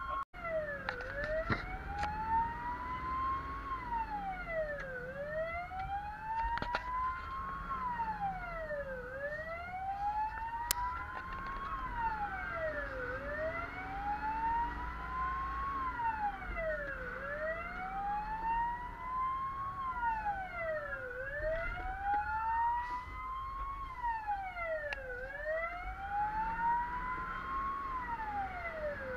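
Fire engine sirens wailing, heard from inside the cab. The main siren rises and falls slowly, about one cycle every four seconds, and a second, higher siren wails out of step with it. A low engine and road rumble runs underneath.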